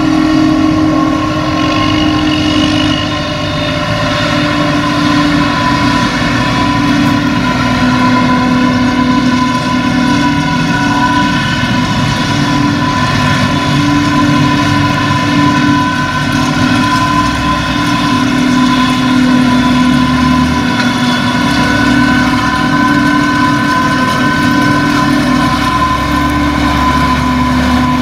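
Claas Jaguar 950 self-propelled forage harvester and a tractor working under load. A steady, loud mechanical drone with held humming tones, its pitch shifting slightly now and then.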